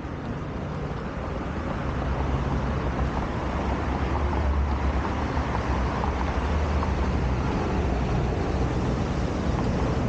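Low rumble of road traffic with a vehicle engine's drone, growing louder about two seconds in and then holding steady.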